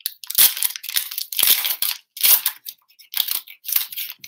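Foil wrapper of an Upper Deck Trilogy hockey card pack being torn open and crinkled by hand, in about five rustles roughly a second apart.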